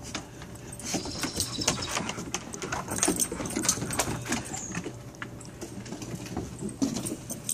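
Puppies and a dog at play on a wooden deck: paws and claws scrabbling and pattering on the boards in many quick irregular clicks, with short puppy growls mixed in.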